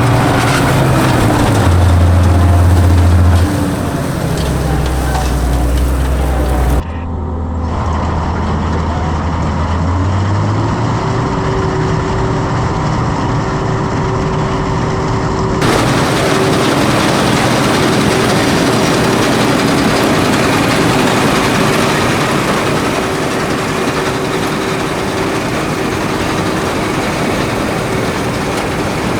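Claas Dominator 85 combine harvester running while harvesting wheat: a steady engine drone with machinery noise. The sound changes abruptly twice, about 7 and 16 seconds in.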